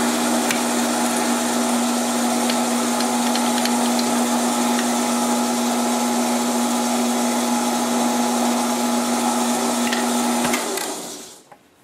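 Metal lathe running with a steady motor-and-gear hum as it turns a steel bar through a light finishing cut. About ten and a half seconds in, the lathe is switched off and winds down within a second.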